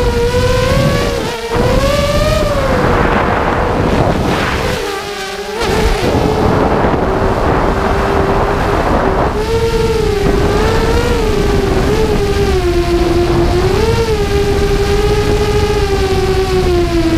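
Brushless motors and propellers of a 5-inch FPV quadcopter (Multistar Elite motors), heard from its onboard camera. The whine rises and falls in pitch with throttle over a rush of wind. It drops away briefly about a second and a half in and again around five seconds in, when the throttle is cut.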